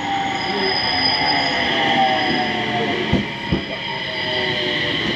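JR electric commuter train pulling into a station. Its motor whine falls slowly in pitch as it slows, over a steady hiss of wheels on rail, with a few thumps from wheels crossing rail joints about three seconds in.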